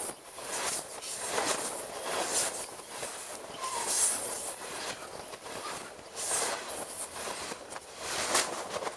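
Freight train passing at speed directly over a camera lying between the rails: a continuous rush and clatter of steel wheels on rail and rattling wagons. It surges louder every second or two as bogies pass overhead.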